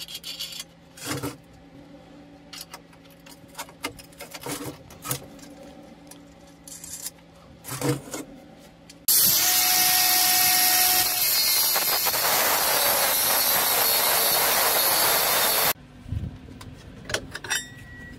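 Steel parts of a homemade lathe knock and clank as they are handled on the steel bed. About nine seconds in, a power tool working steel runs loudly and steadily for about six and a half seconds, starting and stopping abruptly, and then a few more knocks follow.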